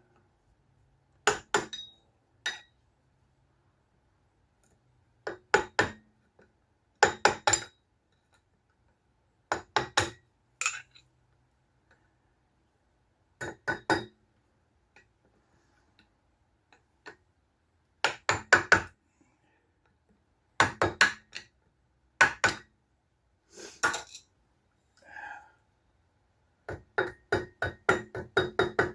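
Metal clinks and taps of hand tools on an outboard motor's propeller and prop-shaft hardware. They come in short clusters of a few quick strikes every few seconds, with a longer run of rapid clicks near the end.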